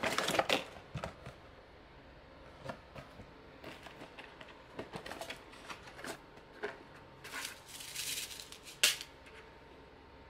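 Unpacking noises: a clear plastic blister tray and cardboard packaging being rustled and handled, with scattered light clicks and crinkles, a longer rustle about three-quarters of the way in and a sharp plastic click near the end.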